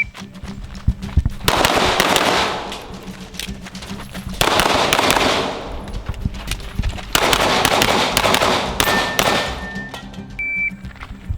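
Pistol shots fired in quick strings over background music. A shot timer beeps about ten and a half seconds in.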